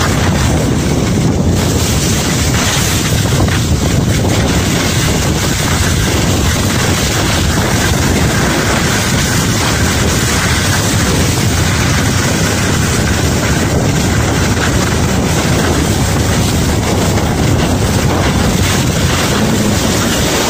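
Steady, loud rush of wind buffeting the microphone of a camera carried by a skier going downhill, mixed with the hiss of skis sliding on groomed snow.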